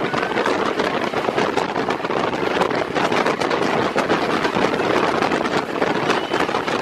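Train running at speed, heard from an open window: a steady, loud rush of wheels on rails and passing air, thick with rapid rattling clicks, with wind buffeting the microphone.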